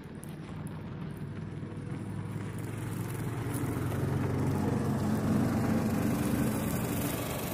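A small utility vehicle's engine running as it drives up, growing steadily louder and loudest about five seconds in.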